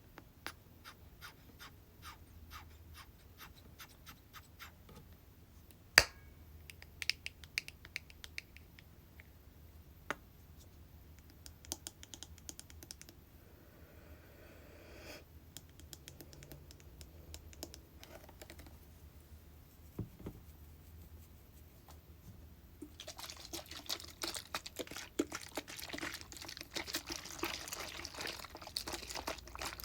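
Tapping on hair-product containers: light, separate taps a few a second, with one sharper click about six seconds in and a brief rustling stretch in the middle. Near the end the tapping turns quick and dense, mixed with scratching, and grows louder.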